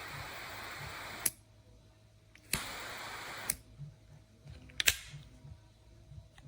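Butane jet-flame lighter insert: a steady gas hiss is cut off by a sharp click. About a second later a click starts a second, shorter hiss, which ends with another click, and a few sharper clicks follow, the loudest near the end.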